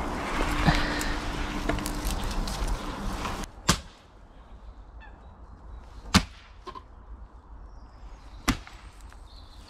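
Rustling and crackling of dry twigs and brushwood being handled, which stops abruptly about three and a half seconds in. After that the background is quieter, with three sharp knocks a couple of seconds apart and faint bird calls.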